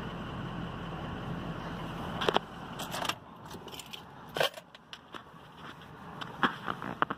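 Pickup truck engine idling, heard from inside the cab; the low hum stops about three seconds in. Several sharp clicks and rattles follow, from handling inside the cab.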